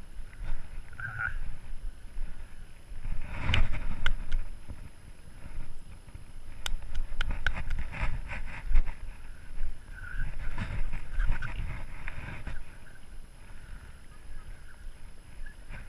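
Rubbing, knocking and wind noise from a chest-harness-mounted GoPro as the wearer moves, with irregular thumps and a run of quick clicks about halfway through.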